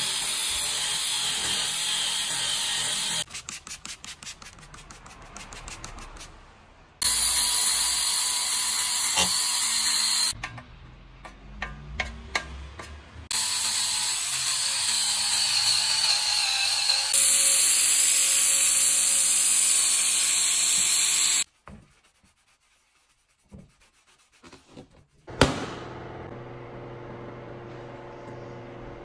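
Small rotary mini polisher with a foam pad running at high speed on paint and an exhaust tip, a high whine in several separate stretches. Between them comes a fast, even ticking rattle. Near the end it gives way to a few seconds of near silence, one sharp click, then a faint steady sound.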